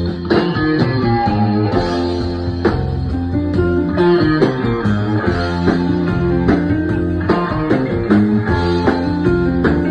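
Live band playing an instrumental passage in a country-rock style: electric guitar to the fore over bass guitar and drums, with steady drum hits throughout.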